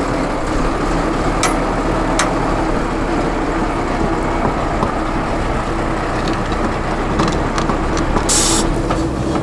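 Tatra 8x8 trial truck's diesel engine running steadily under load as the truck crawls up a steep dirt slope. Two sharp knocks come about one and a half and two seconds in, and a brief hiss about eight seconds in.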